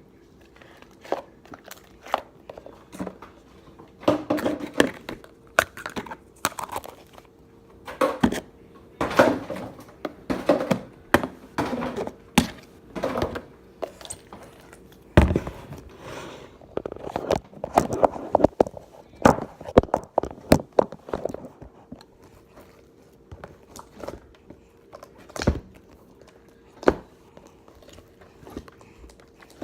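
Hands working slime: irregular crackles, clicks and soft thunks, thickest in the middle, over a faint steady hum.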